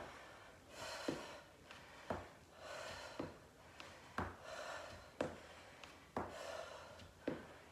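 A woman breathing hard in rhythm with her exercise: a sharp exhale-and-inhale between steps. Her sneakers knock on the floor about once a second as she steps out wide and back in.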